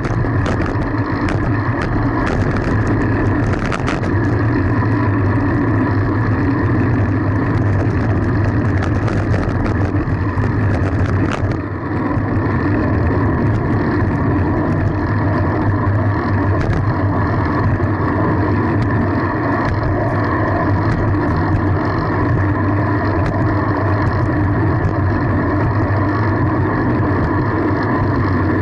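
Steady wind rush and road noise on the camera of a moving fixed-gear bicycle, with scattered ticks during the first dozen seconds.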